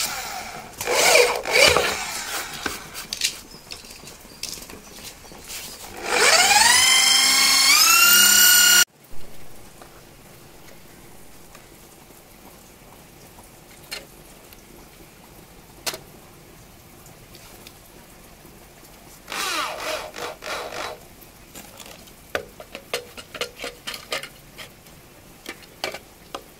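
Electric hand drill with a twist bit boring into a wooden board. About six seconds in, the motor whine rises as it spins up, runs for a few seconds, then cuts off abruptly. Scattered light clicks and knocks follow.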